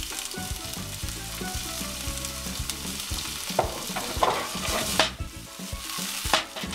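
Chopped shallots and red peppers sizzling in olive oil in a heavy skillet pan, with a steady crackle. A few sharper knocks and scrapes from stirring come around the middle and again near the end.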